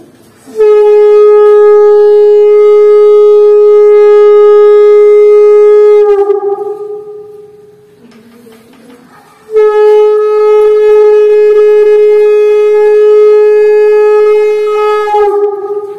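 Conch shell (shankha) blown twice as the ritual call during a puja: two loud, long, steady blasts of about five and a half seconds each, a few seconds apart, each sagging in pitch as it dies away.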